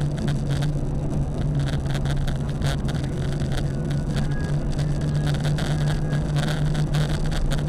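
Steady engine drone and road noise of a car driving at road speed, heard from inside the cabin, with a constant low hum.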